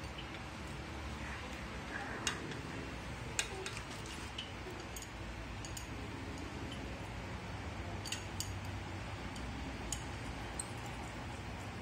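A few scattered small clicks and metal clinks as a wire mesh bicycle basket and its mounting clips are handled against the steel rear rack, over steady background noise.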